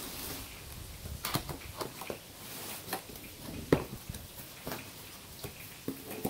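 Cardboard box flaps being lifted and handled, with scattered light knocks and rustles and one sharper knock about halfway through.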